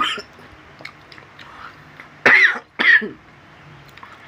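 A man coughing: a short cough right at the start, then two loud coughs in quick succession a little past halfway. The spicy chili sauce has caught in his throat.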